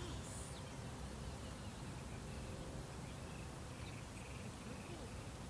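Outdoor ambience: a steady low rumble with faint, short, high chirps repeating about three times a second a little past the middle.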